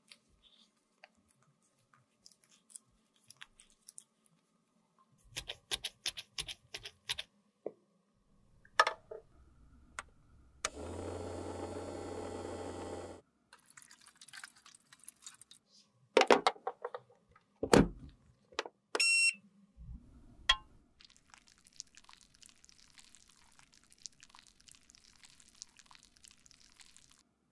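A run of close-miked makeup-restoration handling sounds: tissue rubbing and small clicks as a lipstick tube is cleaned, a steady rush of liquid for a couple of seconds, sharp knocks of tubes in a steel tray, a short electronic beep, then a faint crackling hiss while lipstick mass heats in a glass beaker on a hot plate.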